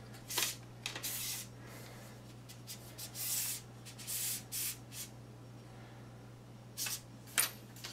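Metal telescope tripod legs being handled and slid through their clamps: a series of short scraping, rubbing sounds, with a gap of about two seconds before two last scrapes near the end.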